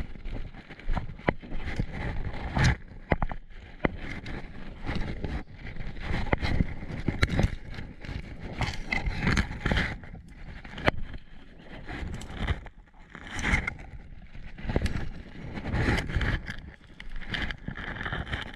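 Leaves and branches rustling and scraping against a person's clothing and gear, with irregular footsteps and twigs snapping, as they push through dense undergrowth.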